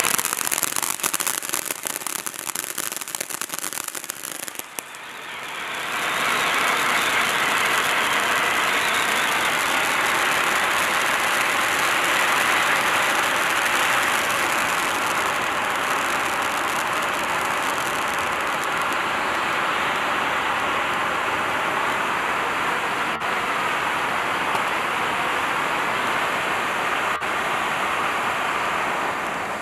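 Standard Fireworks Peacock Fountain, a ground fountain firework, burning: dense crackling for the first few seconds, then, about five seconds in, a louder steady rushing hiss of spark jets takes over.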